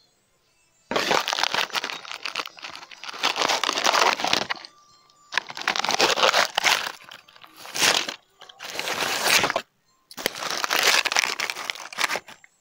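Rustling, scraping handling noise from the recording device's microphone rubbing against fabric as it is moved, in four long bursts with short pauses between them.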